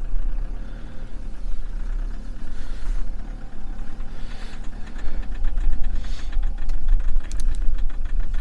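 Mahindra Thar's diesel engine running rough just after a start in extreme cold, with an uneven low rumble and a clatter that grows louder about five seconds in.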